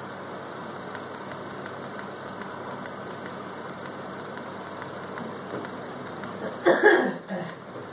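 Steady hissing background noise with faint light ticks scattered through it, and a short louder burst of sound about two-thirds of the way in.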